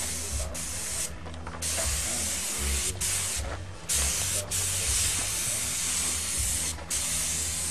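Air-fed paint spray gun hissing as it sprays flat black paint, in long bursts broken by short pauses where the trigger is let go, about a second and a half in, around three and a half seconds in, and briefly a few more times.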